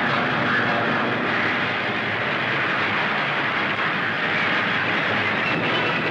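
Propeller fighter aircraft engines droning steadily, a continuous even roar without change in pitch.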